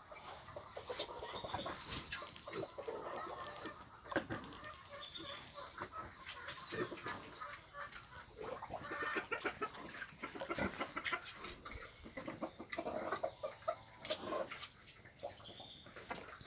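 Pigs, a sow and her weaned-age piglets, grunting and snuffling in short irregular bursts, with a few short high bird calls among them.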